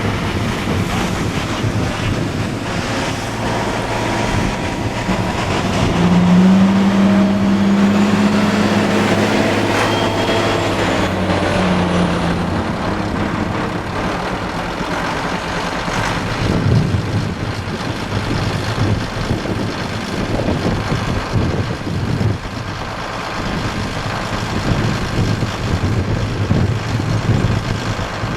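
Motor vehicle running steadily with wind noise. From about six seconds in, a loud droning tone with overtones sounds for around six seconds.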